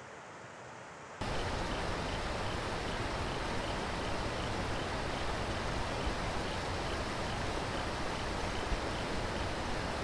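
Rushing water of a river tumbling over rocky rapids, a steady full hiss that comes in abruptly about a second in, after a quieter breezy hiss.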